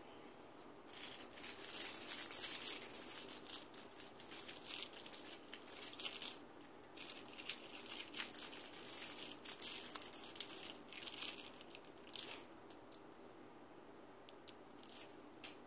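Shiny crinkly plastic, like a crinkle cat toy, scrunched and shaken by hand in dense irregular crackles, thinning to a few scattered crinkles in the last few seconds.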